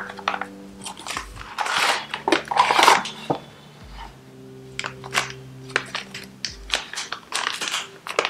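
Crinkling and rustling of a plastic packet being squeezed and shaken, with light ticks and taps as powder is tipped into a wire-mesh sieve; the loudest rustling comes around two to three seconds in. Soft background music plays under it.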